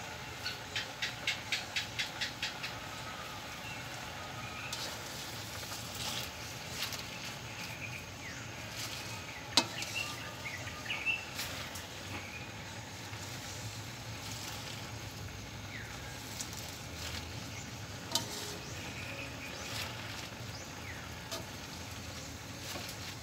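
A slotted spatula scraping and knocking against a pan as chopped pechay (bok choy) is stirred over a faint sizzle. There is a quick run of knocks, about four a second, near the start, and a sharp clack about ten seconds in.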